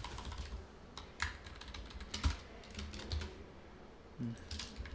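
Computer keyboard being typed on in irregular short runs of keystrokes, with pauses between.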